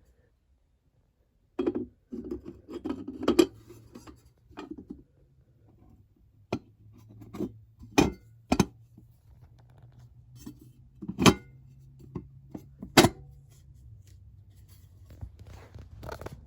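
Hard objects being handled: a short burst of clattering about two seconds in, then several separate sharp clinks and knocks, over a faint low steady hum.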